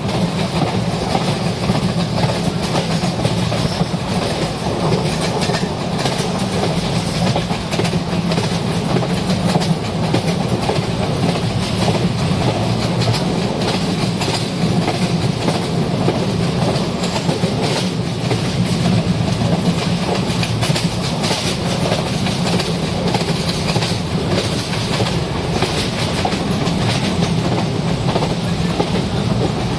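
Train running along the rails: a steady, unbroken rumble with wheel clatter on the track.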